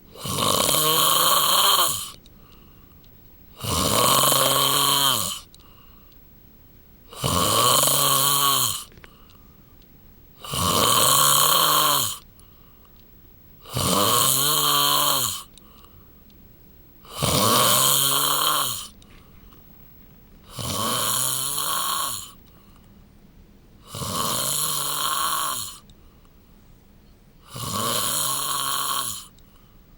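A man snoring in his sleep: nine long, pitched snores in a steady rhythm, about one every three and a half seconds, with short quieter breaths between them. The last few snores are a little softer.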